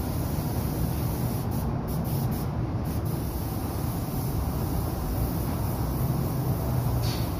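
Spray painting in a paint booth: a steady hissing rush of a spray gun over a continuous low rumble of machinery.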